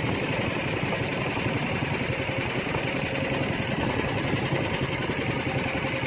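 A small boat's engine running steadily, with a fast, even pulsing beat.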